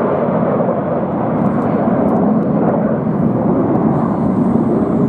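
Jet engine noise from the Red Arrows' formation of BAE Hawk jets flying their display overhead: a loud, steady rushing noise that deepens a little in the second half.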